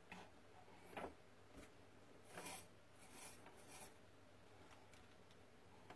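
Faint, brief scraping and rubbing of small tools against a tiny circuit board, a handful of short strokes in near quiet, while a jumper wire is worked onto the charging port's solder pad.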